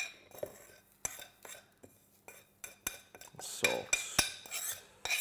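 Metal spoon scraping and clinking against a ceramic bowl as ground spices are spooned out, with a few louder knocks about three and a half to four seconds in as the bowl is tipped over the blender cup.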